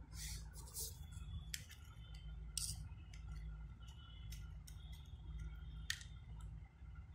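Wires and small parts being handled: a series of sharp clicks and snips at uneven intervals, over a steady low hum.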